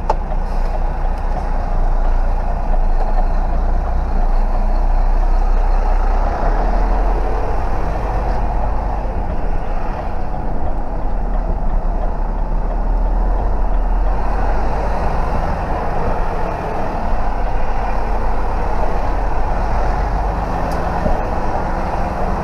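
Truck's diesel engine running at low speed, heard from inside the cab as a steady low rumble while the lorry moves slowly.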